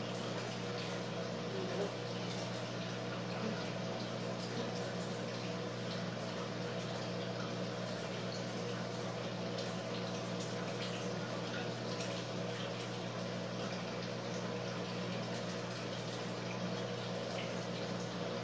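Steady electrical hum with an even hiss: the room's constant background noise, with a couple of faint knocks in the first few seconds.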